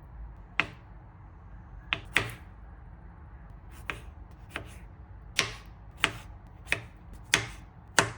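Knife chopping on a cutting board: about ten sharp knocks, spaced unevenly at first, then coming roughly every two-thirds of a second.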